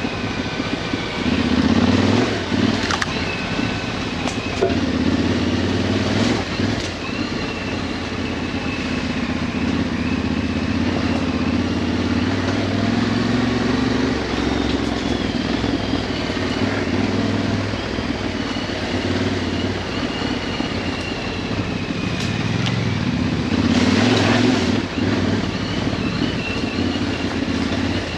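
Yamaha Ténéré 700's parallel-twin engine running on an off-road ride, throttle rising and easing. Brief louder rushes come about two seconds in, about six seconds in and near the end.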